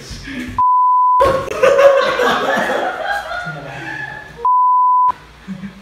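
Two censor bleeps, each a steady high beep about half a second long, some four seconds apart, with laughter and talk between them.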